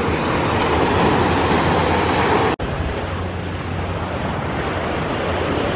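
Small sea waves breaking and washing up the beach, a steady rushing noise. It cuts off abruptly a little over two seconds in, giving way to a steadier, slightly quieter outdoor rush.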